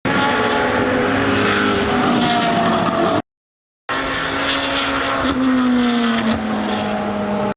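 GT3 race car engines running at speed, with several engine notes that slide slightly down in pitch as the cars go by. The sound drops out completely for well under a second about three seconds in, then another stretch of racing engines follows.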